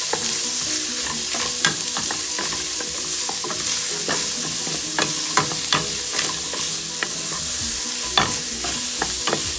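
Diced celery sizzling in hot oil in a stainless-steel pot, with a steady hiss, while a wooden spatula stirs it, scraping and knocking against the pan in many short clicks.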